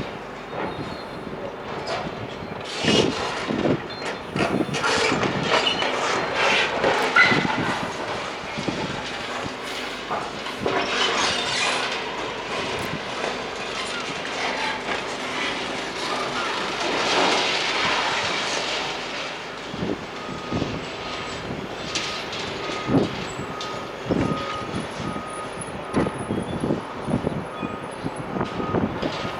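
Demolition machinery at work on a building: repeated knocks and crashes of breaking concrete and falling rubble, with long stretches of screeching, grinding metal in the middle.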